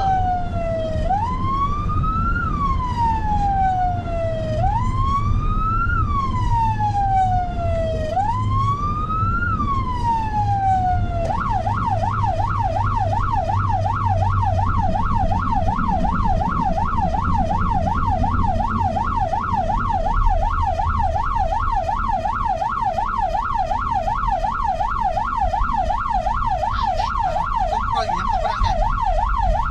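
Electronic emergency-vehicle siren sounding a wail: it rises quickly and falls slowly, about every three and a half seconds. About a third of the way in it switches to a fast yelp, sweeping up and down a few times a second. A low rumble runs beneath for the first two-thirds.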